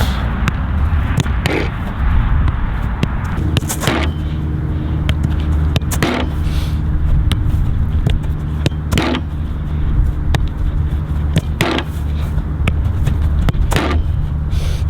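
A soccer ball being kicked, six sharp strikes two to three seconds apart, over a steady low rumble. A steady hum joins about three and a half seconds in.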